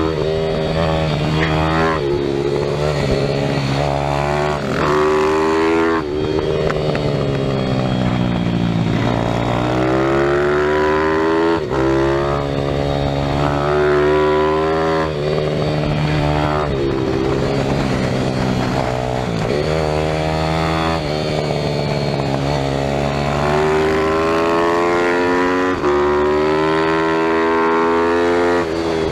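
Pit bike's small single-cylinder engine heard from on board, revving hard and rising in pitch through the gears, with sudden drops between rises and slower falling sweeps as the throttle is rolled off for the corners, over and over.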